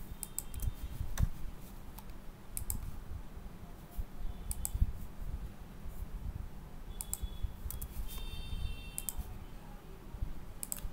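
Computer mouse clicks and keyboard key presses: short, sharp clicks in small clusters every second or two, picking line points and pressing Enter. A steady low rumble lies underneath.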